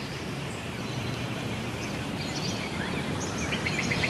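Outdoor ambience: a steady hiss of background noise with birds chirping faintly, and a quick run of repeated high chirps near the end.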